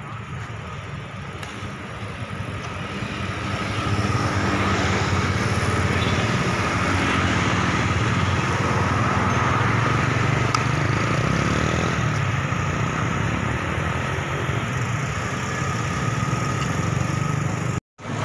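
Steady road-traffic noise with motorcycle engines, growing louder about four seconds in. It cuts out for a moment near the end.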